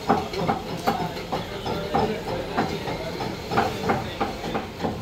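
Butcher's cleaver chopping skinned chicken into curry pieces on a wooden log chopping block: a quick, steady run of knocks, about three a second, each ringing briefly.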